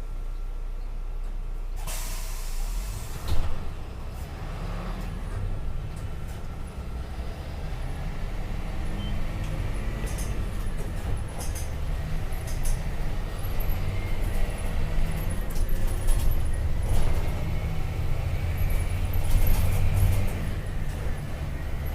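MAN D0836 six-cylinder diesel of a Volkswagen Volksbus 17.260 running. About two seconds in there is a short hiss of compressed air, then a sharp knock. After that the engine runs under more load and grows gradually louder.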